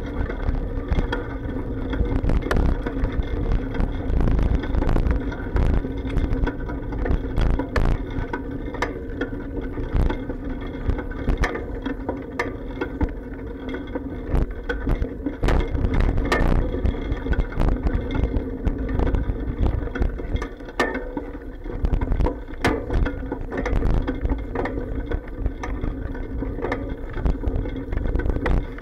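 A bicycle riding over a road, heard through the camera's sealed waterproof case: a steady rumble with frequent sharp clacks and bumps carried up through the bike's frame.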